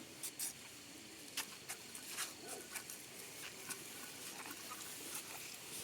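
Irregular light ticks and patter, a few dozen small sharp clicks over a steady background hiss.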